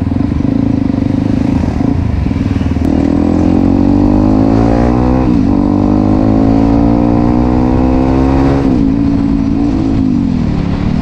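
Yamaha WR155R's single-cylinder engine pulling away under throttle: its pitch climbs, dips sharply at a gear change about five seconds in, climbs again, then drops back and falls away as the throttle eases near the end.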